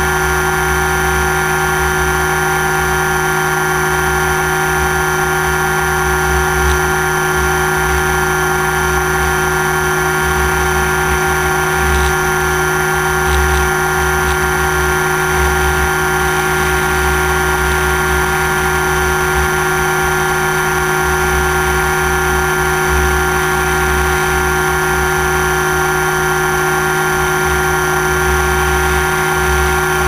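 Quadcopter drone's electric motors and propellers whirring steadily, heard from the camera mounted on the drone: several steady high tones over a low rumble that comes and goes.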